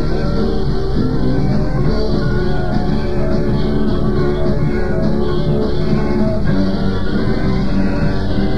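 Live rock band playing loudly without a pause: electric guitar, bass, keyboards and drums, heard on an old cassette recording with wow and flutter.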